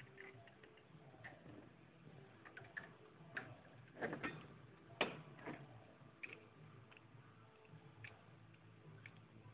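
Scattered light metallic clicks and knocks of tap-and-die tools being handled on a workbench: a tap wrench and die holder picked up, set down and fitted together. A small cluster comes about four seconds in, and the loudest knock about a second later.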